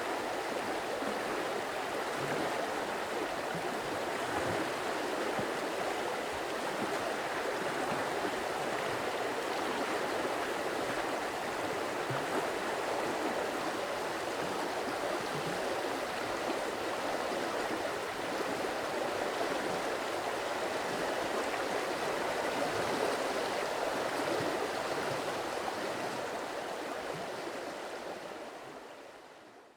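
Stream water flowing over rocks, a steady rushing and gurgling that fades out near the end.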